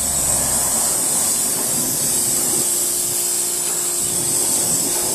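Yard Force compact electric pressure washer spraying a high-pressure water jet: a steady hiss of spray with a steady motor whine underneath.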